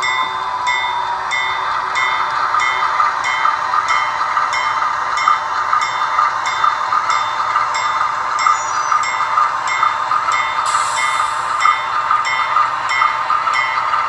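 HO-scale GE B36-7 model locomotive's onboard sound decoder playing its diesel engine sound through the model's small speaker as it moves, running steadily with a regular beat about three times a second. A short burst of air hiss comes about eleven seconds in.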